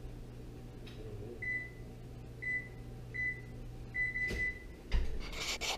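An electric oven's control panel beeping: a few short high electronic beeps, then a longer one about four seconds in. Near the end the oven door thumps shut, followed by a brief clatter.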